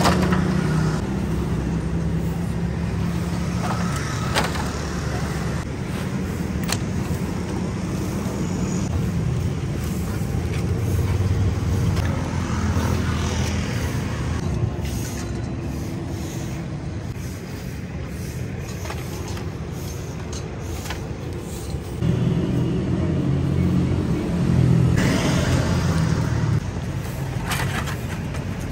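Street ambience: a steady low rumble of passing and idling vehicle engines, with a few sharp clicks and clatters.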